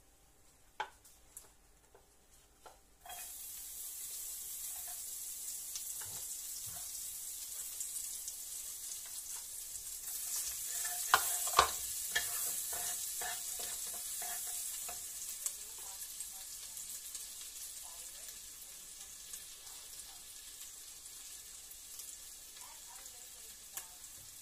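Chopped garlic sizzling in hot oil in a frying pan, the hiss starting suddenly about three seconds in as the garlic goes in. A wooden spatula knocks and scrapes against the pan as it is stirred, with the sharpest knocks near the middle.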